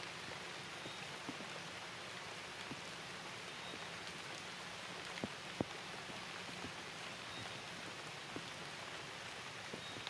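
Steady rain falling, with scattered drops ticking nearby and two sharper ticks about halfway through.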